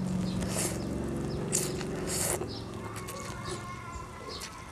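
A person slurping instant noodles in off chopsticks and chewing: a series of short, wet slurps, the longest about two seconds in, fading to smaller mouth noises near the end.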